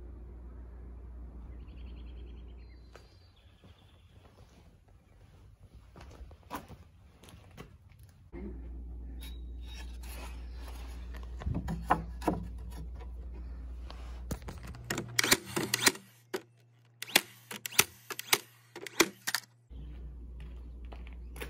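Cedar boards being handled and knocked into place, then a quick run of sharp clacks near the end as a brad nailer tacks the slats to the frame.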